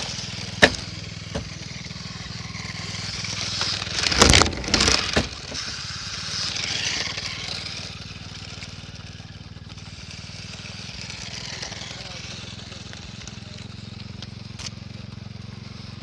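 Footsteps in flip-flops on rough asphalt right beside a ground-level microphone: a sharp slap about half a second in, then a loud cluster of gritty, crunching steps about four seconds in.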